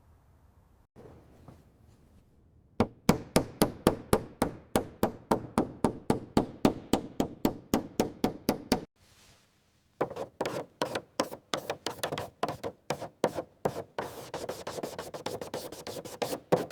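Fast, even rubbing strokes of a hand tool on a surface, about four to five a second, in two runs with a short pause between; the strokes quicken near the end.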